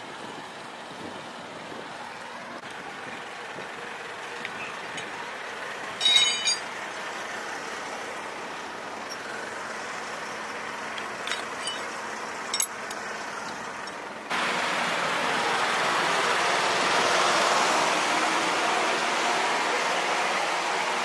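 Steady vehicle engine noise with a short, sharp metallic clank about six seconds in and a few lighter clicks later. About fourteen seconds in it gives way suddenly to a louder steady hiss.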